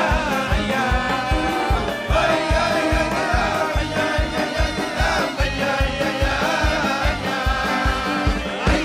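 Live Hasidic pop music: voices singing a melody over a band with a steady, fast drum beat.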